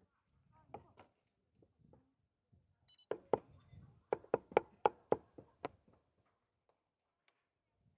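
Cleaver chopping on a cutting board: a few light knocks, then a quick run of about nine sharp chops, some four a second, before it stops.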